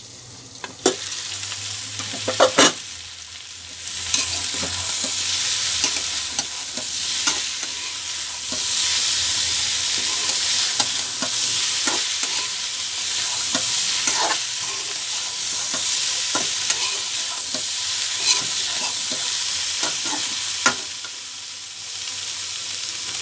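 Cauliflower and papaya sizzling in a metal karai while a metal spatula stirs and scrapes through them. A few sharp metal clanks about two seconds in come as the lid is lifted off.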